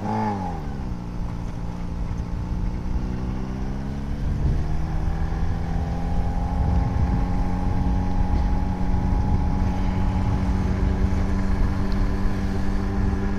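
Yamaha XJ6 inline-four motorcycle engine under way. The revs drop sharply in the first second, then it runs at a steady pitch, climbs gently from about four seconds in, and holds steady again over a low rumble.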